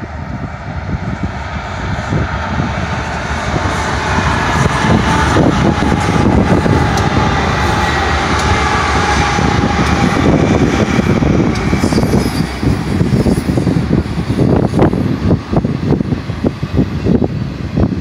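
Four BNSF GE diesel freight locomotives (an ES44DC, an ES44C4 and two Dash 9-44CWs) passing under power, their engine sound building over the first few seconds as they draw near. From about twelve seconds in, the intermodal cars roll by with a steady rumble and repeated clacks of the wheels over the rails.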